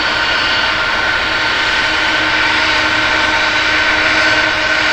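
Boeing 747-400's four jet engines running with a steady whine as the airliner rolls along the runway.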